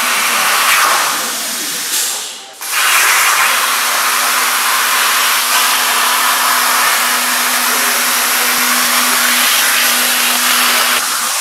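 Hypertherm Powermax85 plasma torch cutting steel plate: a loud steady hiss of the arc and air. It cuts out briefly a little over two seconds in and starts again. A faint steady hum joins about three and a half seconds in.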